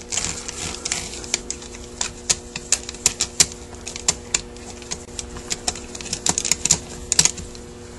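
Rapid, irregular small metal clicks and taps as the parts and screws of a Rochester Quadrajet carburetor are handled, while a forgotten top screw is taken out. A faint steady hum runs underneath.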